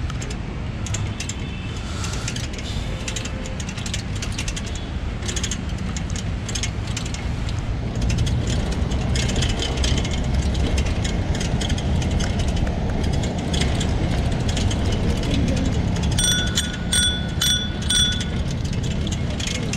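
Yulu shared bike rolling along a paved path: a steady low rumble of tyres and wind with the front basket and frame rattling over bumps. Near the end the handlebar bell rings about five times in quick succession.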